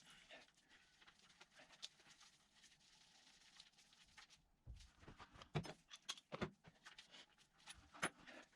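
Faint clicks and light metallic knocks from engine parts being handled and worked loose. They are sparse at first and come in a busier cluster of sharper knocks in the second half.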